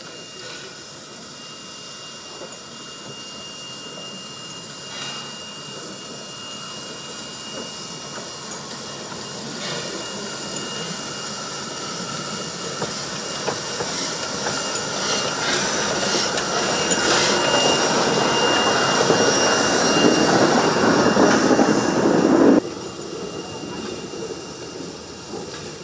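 Steam locomotive NM25 running slowly and passing close by, with steam hissing from its cylinder drain cocks. The hiss grows steadily louder as it approaches, then drops abruptly about 22 seconds in.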